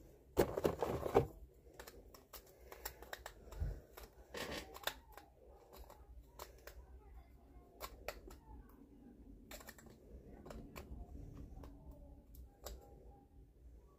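Handling noise from fitting together the plastic parts of a toy sonic screwdriver: scattered sharp clicks and light rustling, with a louder rustle burst about half a second in and a dull knock a few seconds later.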